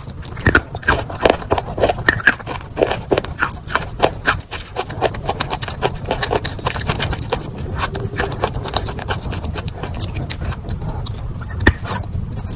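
Crunching and chewing of wet chalk with grey paste: a dense, irregular run of sharp, crisp crunches, several a second.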